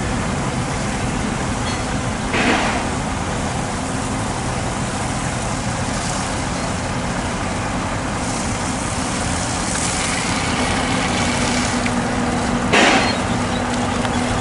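Heavy diesel trucks idling with a steady low hum under the hiss of high-pressure water hoses spraying. Two short, louder hisses come about two seconds in and near the end.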